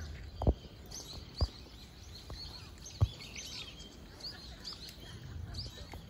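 Wild birds calling, a steady run of short, high chirps over soft outdoor background noise. Three short, dull thumps, the loudest sounds, come about half a second, a second and a half and three seconds in.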